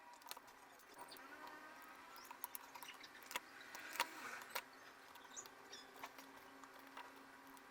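Faint, scattered clicks and taps of plastic laptop parts being handled and pried during keyboard removal, the sharpest about four seconds in.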